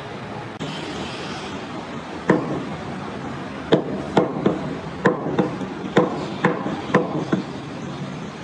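Butcher's cleaver chopping goat meat on a round wooden chopping block: about ten sharp chops, roughly two a second, starting a couple of seconds in.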